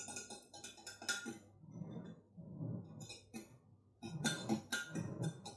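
Fork beating a raw egg in a small glass: quick, rapid clinks of the metal fork against the glass. The clinking thins out for about two seconds in the middle, then picks up again.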